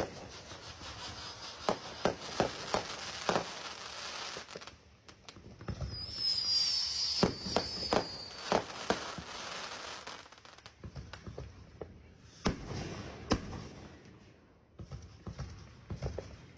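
Fireworks going off: continuous crackling with repeated sharp bangs, and a whistle falling slightly in pitch about six to eight seconds in. A couple of louder bangs come past the middle, followed by a brief lull before more bangs.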